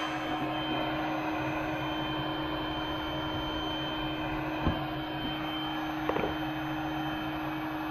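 Steady machine hum with a constant pitch over a layer of hiss. There is one sharp click a little past halfway and a short rattle of knocks about a second and a half later.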